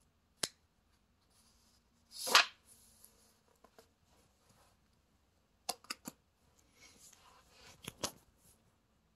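A page of a large picture book being turned by hand: one paper swish a little over two seconds in, with soft rustling and a few light clicks and taps of fingers handling the pages.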